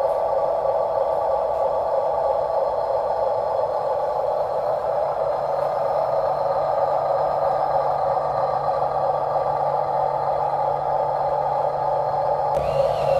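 Electric motors and gearboxes of RC construction models running steadily, with a constant whirring. Near the end a higher sound rises briefly over it.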